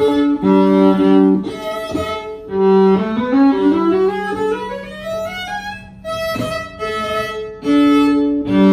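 Violin fitted with a Schertler STAT-V pickup, bowed and heard through an amplifier and a floor monitor wedge: long held low notes, with a quick rising run of notes in the middle.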